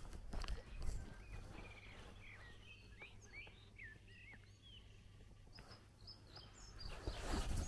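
Small birds chirping and singing, short curved calls one after another through the middle. Footsteps on grass are heard in the first second and pick up again near the end.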